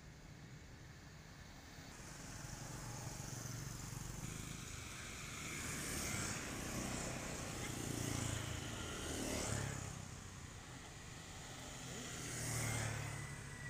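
Motor vehicles passing on a road: several swell up and fade away in turn, with a low engine hum under each.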